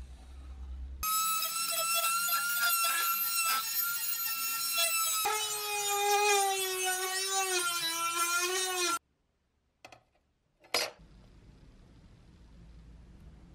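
A handheld rotary tool with a small sanding drum whines at high speed while grinding the steel knife blade. About five seconds in its pitch drops lower and wavers as the drum works the metal. It cuts off abruptly, followed by a couple of short knocks.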